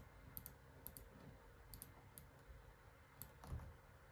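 Faint computer keyboard typing: scattered light key clicks at an uneven pace as a short line of text is typed.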